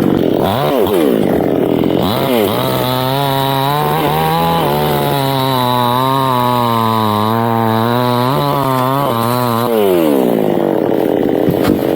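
Two-stroke chainsaw revving up and down a couple of times, then running at high speed for several seconds with its pitch sagging and wavering as it cuts teak wood, and dropping back toward idle near the end.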